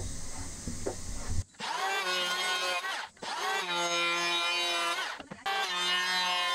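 Makita electric hand planer shaving a Keyaki (Japanese zelkova) board in three passes with short breaks between them. Its motor whines, and the pitch dips as each pass bites into the wood. A low rumbling noise comes before the first pass, in the opening second and a half.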